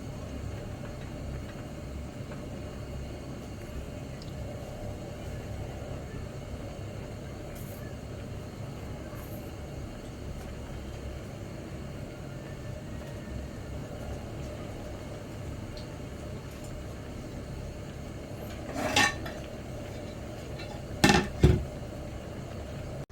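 Steady low hum, with a metal utensil clinking sharply against a dish or tin three times near the end: once, then a close pair about two seconds later.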